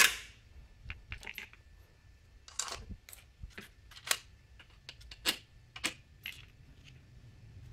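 Light metallic clicks and clinks of small steel bolts being handled and set against a scooter's CVT cover: about a dozen separate taps, irregularly spaced.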